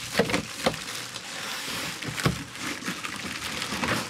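Packaging rustling and crinkling, plastic wrap and foam, as items are pulled from a cardboard box, with several knocks among it and a louder thump a little past two seconds in.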